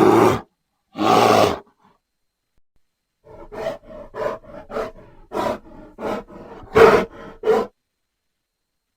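Bear vocalizing: the tail of one roar, a second short roar about a second in, then after a pause a run of short grunts, about three a second, the loudest near the end of the run.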